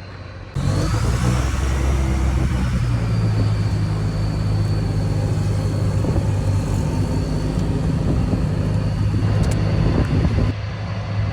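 EZ-GO TXT gas golf cart's 298cc engine running steadily after a new carburetor and fuel pump, with a faint high whine that rises and falls over the first few seconds. The sound cuts in abruptly about half a second in and drops in level near the end.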